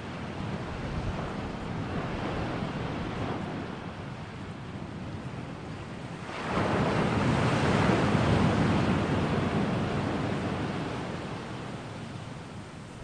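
Ocean surf: waves washing in as a steady rush, with one larger wave swelling about six and a half seconds in and slowly fading away.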